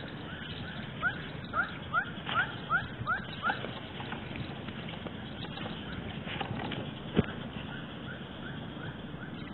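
Spinning reel being cranked to bring in a hooked fish, giving a short rising squeak with each turn, about two a second, that fades out after the first few seconds.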